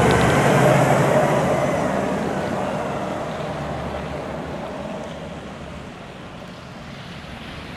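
Valtra T234 tractor's six-cylinder diesel engine running as it passes, with its front snowplow blade scraping slush off the road. The sound is loudest about a second in and then fades steadily as the tractor drives away.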